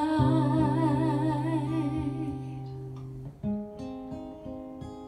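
A woman singing with an acoustic guitar. She holds one long note with vibrato for about two and a half seconds over a ringing guitar chord. Then the guitar plays a few picked notes on its own, fading away.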